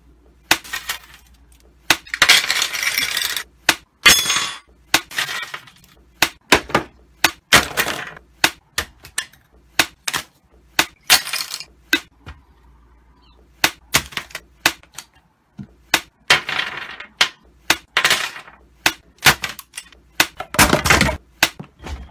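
A plastic keyboard and its keycaps clattering against a glass desktop: a long irregular run of sharp clicks and clinks, with rattling bursts about two, four, sixteen and twenty-one seconds in.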